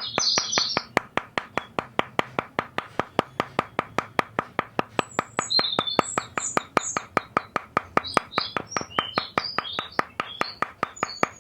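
Rapid, even clicking, about four to five sharp clicks a second, with small birds chirping over it near the start and again in the second half.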